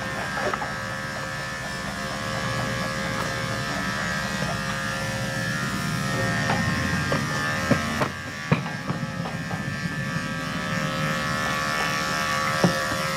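Electric dog-grooming clippers running steadily with a buzz, with a few sharp clicks or knocks more than halfway through and again near the end.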